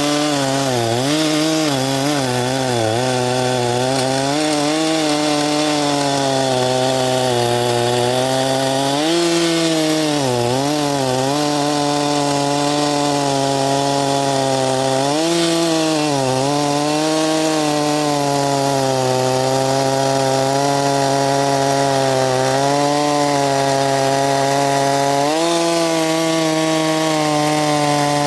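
Two-stroke engine of a Huyosen 6524 chainsaw, a Husqvarna 365 clone, running fast and steady, its pitch sagging and recovering briefly about four times while the carburettor mixture is being adjusted. The owner judges it too lean on the low side and too rich on the high side.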